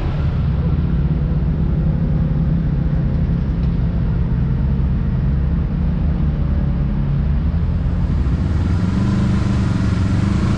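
Kawasaki Teryx KRX 1000 side-by-side's parallel-twin engine running steadily while driving, a continuous low drone, with its pitch starting to climb near the end as it speeds up.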